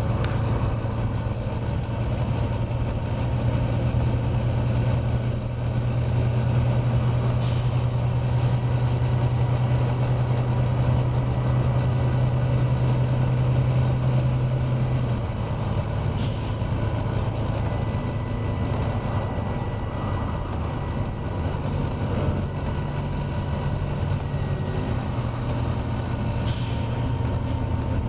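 Volvo B9TL double-decker bus's six-cylinder diesel engine running steadily under way, its drone shifting in pitch about halfway through. Three short bursts of air hiss from the bus's air system cut in, roughly every nine seconds.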